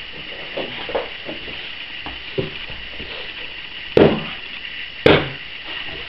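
Thuds and impacts of a wrestling bout: a few light knocks, then two loud hits about a second apart.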